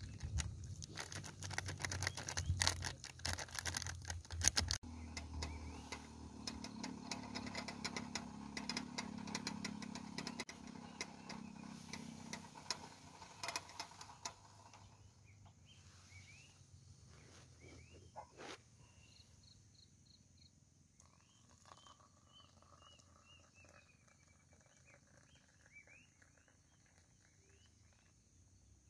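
Paper sachet rustling as drink powder is shaken into paper cups, then a portable butane stove's burner running steadily under a kettle until it is turned off about halfway through. Afterwards faint bird chirps.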